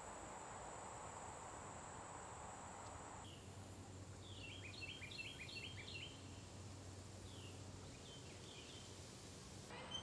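Faint woodland ambience: a steady high insect buzz for the first three seconds, then birds chirping, a quick run of short calls in the middle and a few more near the end.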